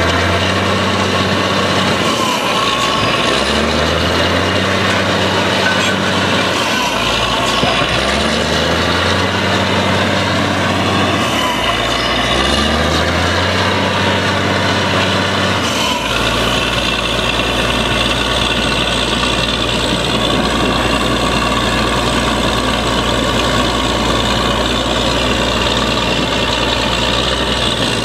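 Truck-mounted borewell drilling rig running under load, its engine and compressed air giving a loud steady drone with a hiss of air as cuttings are blown out of the borehole. The low engine note swells and drops in a cycle about every four seconds for the first half, then holds steady.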